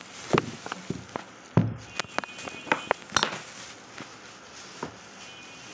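Thin clear plastic bag crinkling and crackling as a child's hands scrunch it, with a quick run of sharp crackles and a heavier thump in the first three seconds, then only a few faint crackles.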